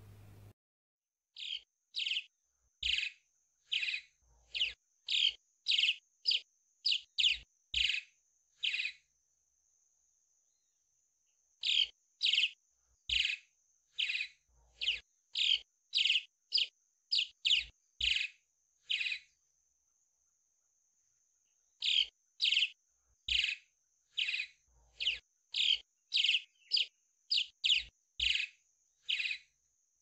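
Swallow calling: short, high chirps about one and a half a second, in three runs separated by pauses of two to three seconds, over a faint steady high hiss.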